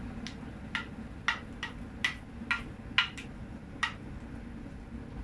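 A utensil clicking against the edge of a glass Pyrex baking dish while mashed potato is spread over the filling: about nine light, uneven clicks in the first four seconds.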